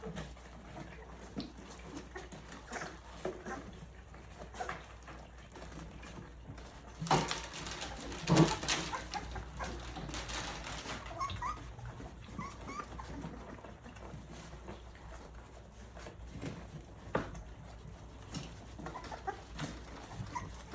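Three-week-old Rottweiler puppies whimpering and squeaking while feeding, with scattered small clicks and smacks throughout and a louder clatter about seven to eight and a half seconds in.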